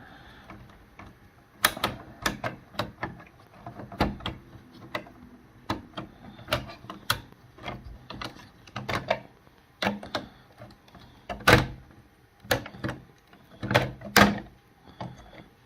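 LEGO plastic pieces clicking and knocking as a built model is handled and loose parts are pressed back into place. The clicks come irregularly, with several louder knocks in the second half.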